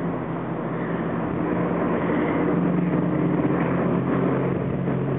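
A motor engine running steadily: a low hum under a rushing noise, slowly growing a little louder.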